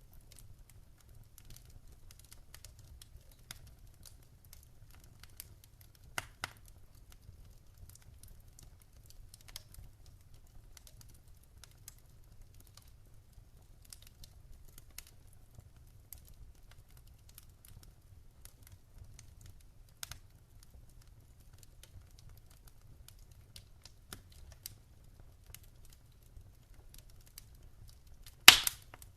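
Wood fire in a fire pit crackling, with scattered sharp snaps and a faint low rumble underneath. A few louder pops stand out, the loudest near the end.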